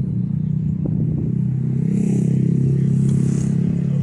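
A road vehicle's engine running close by with a steady low hum, growing a little louder toward the end as it passes.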